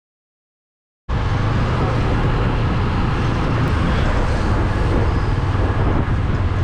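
Loud, steady riding noise from a motorcycle on the move: low wind rumble on the microphone mixed with engine and traffic noise, cutting in suddenly about a second in after silence.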